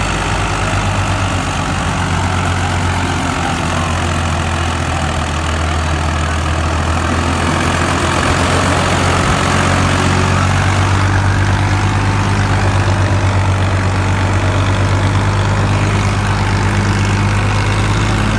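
Farmtrac 6055 PowerMaxx tractor's diesel engine running steadily at a low, even pace, slightly louder from about eight seconds in.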